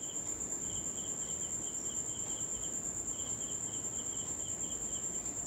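Insects chirping: a high-pitched pulsed chirp repeating in short runs with brief gaps, over a steady thin high tone.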